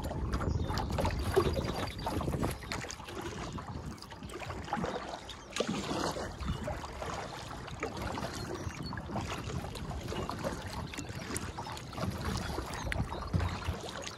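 Kayak being paddled: irregular paddle splashes and water lapping against the hull, with a low wind rumble on the microphone.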